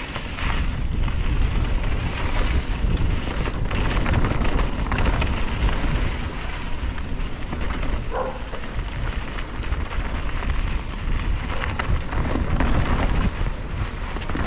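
Wind rushing over the microphone on a fast mountain-bike descent, with a steady rumble of tyres on the trail. A brief pitched sound about eight seconds in.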